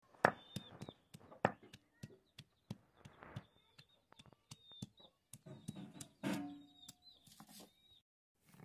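Garlic cloves and ginger crushed with a hand-held stone on a stone slab: a run of irregular sharp knocks and gritty crunches. Birds chirp in the background.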